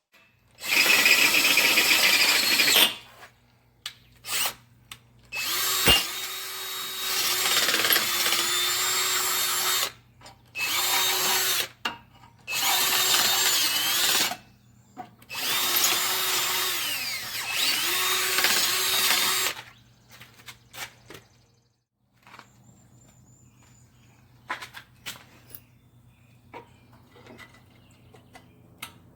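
Power saw cutting OSB board in about five runs of a few seconds each, its motor note dipping and picking back up between them. After about twenty seconds it stops, leaving only faint clicks and handling sounds.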